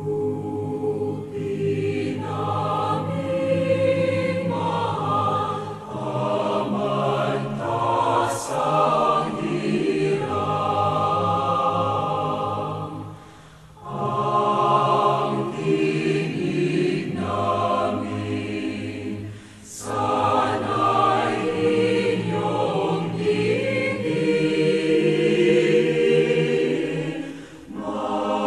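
A choir singing a song in several voices, in long phrases with brief breaks between them.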